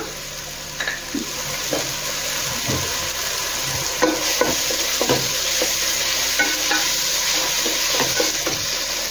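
Onion-tomato masala frying in a nonstick pan with a steady sizzle, stirred with a spatula that scrapes and knocks irregularly against the pan as freshly added salt is mixed in. The sizzle strengthens about a second in.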